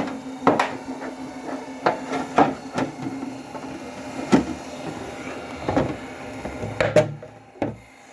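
Irregular hollow knocks and clatter of a treadmill's plastic motor cover being handled and lifted off, over a steady hum. The hum dips out briefly near the end.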